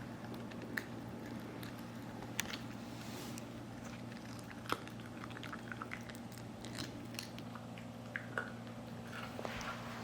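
Shiba Inu gnawing on a dried Achilles-tendon chew: irregular crunches and sharp clicks of teeth on the hard chew, over a low steady hum.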